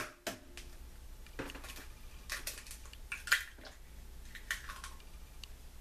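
An egg being cracked and its shell pulled apart over a mixing bowl: a string of light, sharp clicks and taps.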